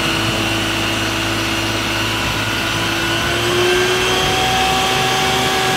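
An Isuzu water tanker truck's diesel engine running steadily while its roof-mounted water cannon sprays, with a constant rushing hiss of the jet over the engine. The engine note rises slightly about three and a half seconds in.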